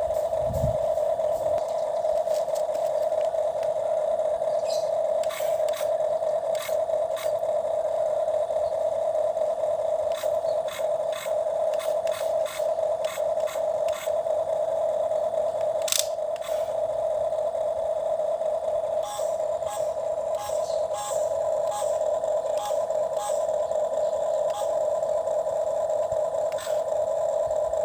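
Small electric motor of a toy excavator whirring steadily, with scattered clicks and ticks from its plastic gears and parts.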